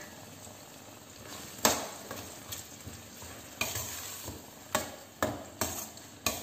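Metal spatula stirring a thick green masala paste through frying vegetables in a stainless steel kadai, scraping and clacking against the pan about half a dozen times, the first stroke the loudest, over a faint sizzle of frying.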